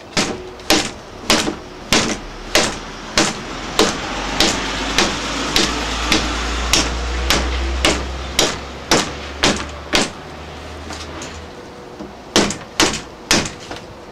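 A wooden block knocking against a vinyl window sash frame in an even run of sharp taps, a little under two a second, seating the frame over the double-pane glass unit; the knocking pauses for a couple of seconds about ten seconds in, then resumes.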